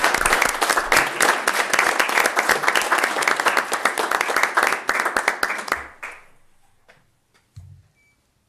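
A small audience applauding, dense and steady, then dying away about six seconds in. A soft low thump follows near the end.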